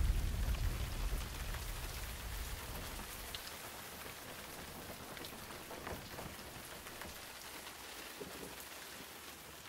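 A rumble of thunder dies away over the first few seconds, leaving steady rain with scattered drops ticking.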